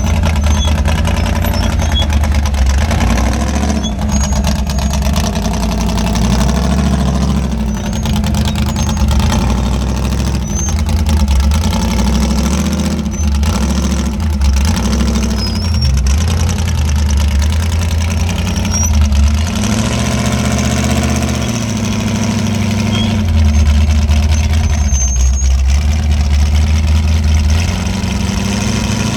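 Off-road rock-crawling rig's engine idling and revving as it works up a rock trail, the revs rising and falling several times.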